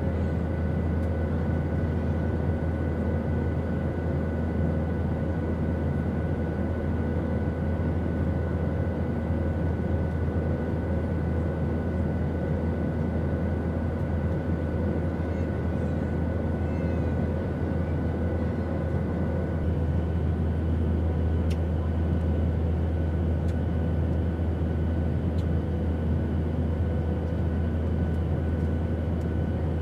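Airplane noise used as sleep white noise: a steady, even low drone with a broad hiss and a few faint steady whining tones. About two-thirds of the way through, one high faint whine stops and a slightly higher one takes over, and a few faint ticks come later.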